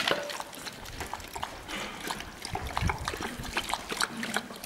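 Two dogs lapping water from a shallow plastic bowl: a rapid, irregular run of wet tongue clicks and splashes.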